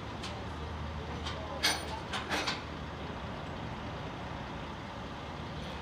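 Heavy diesel truck idling with a steady low drone. A few short, sharp noises come about one and a half to two and a half seconds in.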